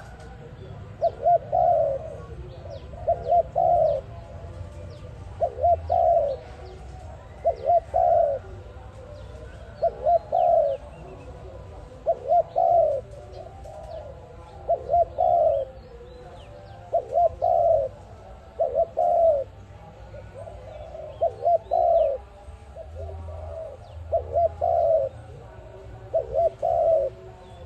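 Spotted dove (tekukur) cooing over and over: short low phrases of two or three coos, about one every two seconds. Faint chirps of small birds sound behind it.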